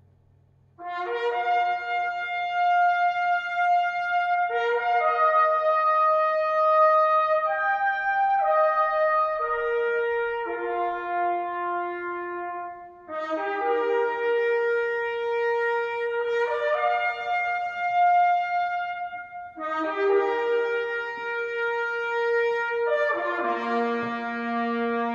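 Recorded instrumental music played through a pair of B&W 802 D3 floor-standing loudspeakers: slow phrases of long held chords with short breaks between them. It starts about a second in, after near silence, and a lower held note joins near the end.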